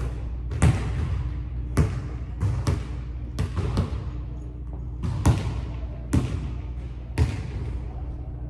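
Basketball bouncing on a hardwood gym floor: about ten irregularly spaced bounces, some in quick pairs or triplets, each trailing a long echo in the large empty gymnasium.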